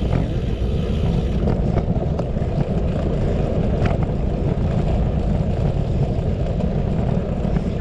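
Wind rushing over the microphone of a moving bicycle: a steady low rumble, with a few faint clicks.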